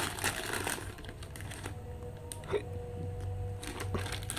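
Black plastic mailer bag crinkling as hands dig into it, with scattered light clicks and taps of small plastic items being handled.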